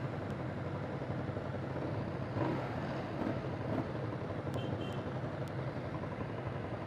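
Ducati Scrambler's 800cc V-twin idling steadily at a standstill, a low even rumble, with other motorcycles idling close by.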